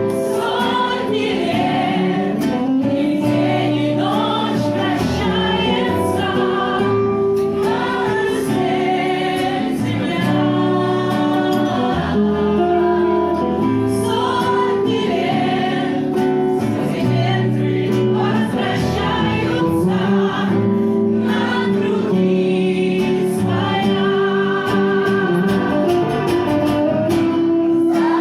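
Pop song with an instrumental backing track and several voices singing together, choir-like, with vibrato on held notes.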